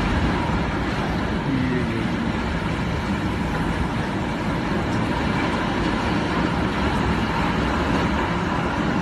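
Strong wind blowing, a steady low rumbling rush without pauses.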